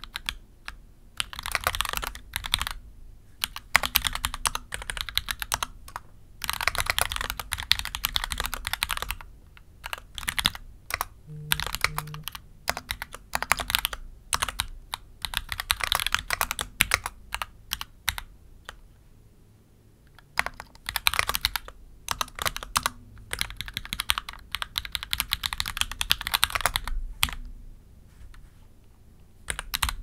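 Close-miked mechanical keyboard with Gateron Oil King v2 linear switches being typed on, in quick runs of keystrokes of a second or three, broken by short pauses and scattered single key presses.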